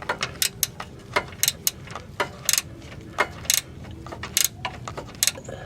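Sharp metallic clicks and clinks at irregular moments, some in quick pairs or threes, from hand tools and the steel bracket being worked while a sway bar bushing bracket is refitted.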